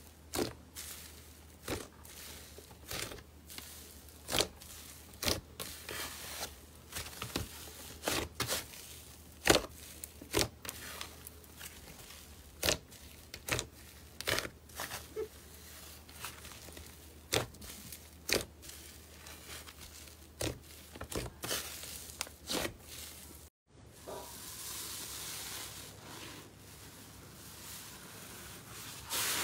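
Slime being squeezed and poked by hand, giving irregular sharp pops and crackles. After a brief break near the end it turns to a softer, continuous crinkling rustle.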